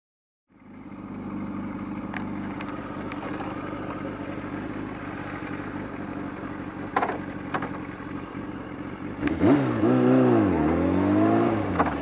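Motorcycle engine idling steadily, with a few sharp clicks, then revved about nine seconds in, its pitch rising, dipping and rising again before dropping back near the end.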